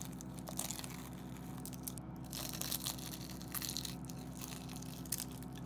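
Crunching bites into a crispy fried lumpia (Filipino spring roll) and chewing it, the fried wrapper crackling in clusters of sharp crunches.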